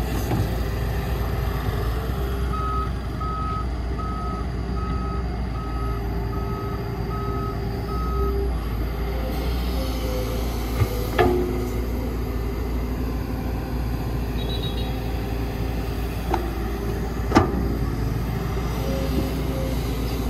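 Heavy diesel machinery running steadily while a reversing alarm beeps eight times, about one beep every three-quarters of a second, starting a couple of seconds in. Later come a few sharp knocks, the loudest about three seconds before the end.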